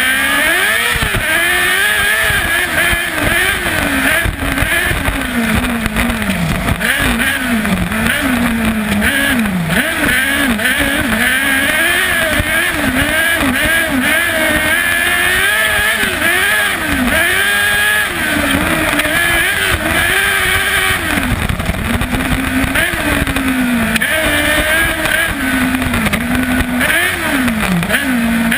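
Kart cross buggy's 600cc Yamaha R6 inline-four motorcycle engine racing, heard onboard: it revs up and drops back over and over, its pitch climbing and falling every second or two through gear changes and throttle lifts.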